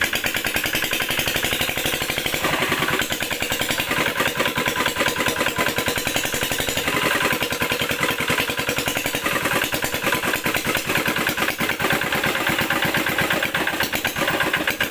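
Small engine running steadily with a fast, even chugging.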